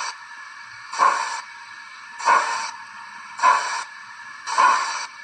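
Zimo sound decoder in a Bachmann OO gauge GWR 56xx 0-6-2 tank engine model, playing steam exhaust chuffs through the model's small speaker. Four slow chuffs a little over a second apart, with a steady hiss between them, in time with the smoke puffs from the chimney.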